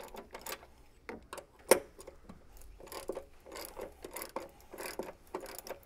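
Socket ratchet clicking in short runs while loosening the strut-mount nuts on the strut tower, with one sharper click about a second and a half in.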